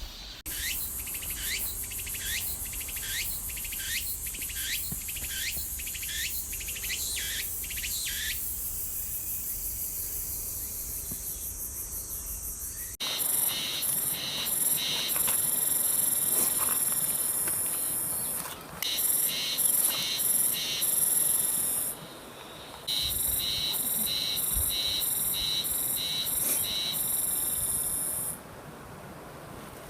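Cicadas singing. A high steady buzz comes first, with a run of repeated falling chirps over the first several seconds. About a third of the way in it switches abruptly to a louder cicada song that pulses several times a second, breaks off briefly twice and stops shortly before the end.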